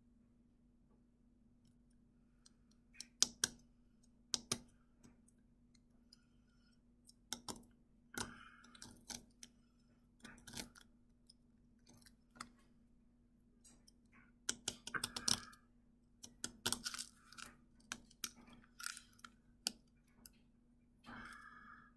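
A needle scraping and picking at a brittle disc of dalgona honeycomb sugar candy on a glass tabletop: faint, irregular clicks and ticks with a few short scratching scrapes as bits of the candy crack away.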